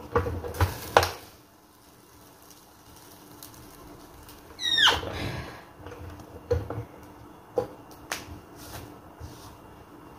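Clicks and light knocks from handling an electric flat press and its thin pressed dough discs, three sharp ones in the first second and several lighter ones in the second half. A short falling squeak sounds a little before the middle, over a faint steady hum.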